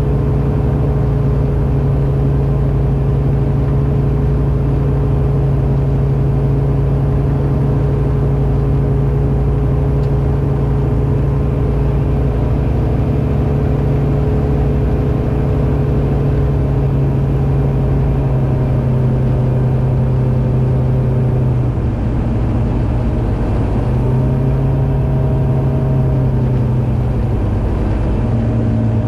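Aquila A210 light aircraft's Rotax 912 four-cylinder engine and propeller running steadily. In the last third the engine note drops and shifts a few times as the power setting changes.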